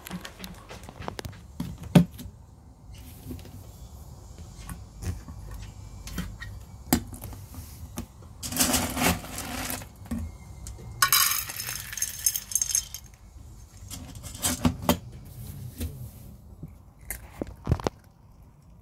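Metal cat food bowl clinking and knocking as it is handled, a string of short sharp clinks with two longer rattling stretches about halfway through.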